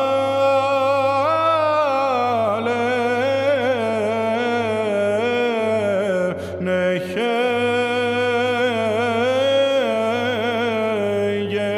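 A solo male chanter singing a melismatic Byzantine communion hymn, the melody turning up and down in ornamented steps over a steady low drone (ison). The voice breaks off briefly for a breath about halfway through.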